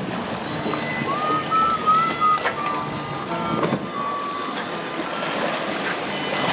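Wind buffeting the microphone over choppy open sea, with water splashing and a few sharper splashes or knocks. Several brief, thin whistling tones waver in and out over it.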